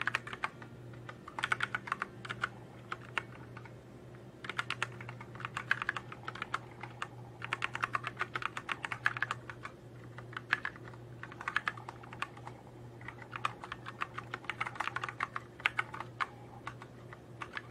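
Fast typing on a computer keyboard, the keystrokes coming in runs of a second or two with brief pauses between them, over a low steady hum.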